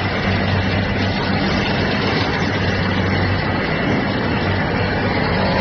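Steady din of a stainless-steel pot production line's machinery and conveyors running, a broad mechanical noise over a steady low hum.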